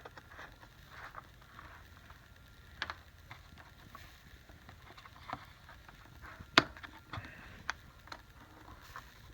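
Scattered light clicks and knocks, the loudest a single sharp click about six and a half seconds in: plastic oil bottles and a funnel being handled at the engine's oil filler.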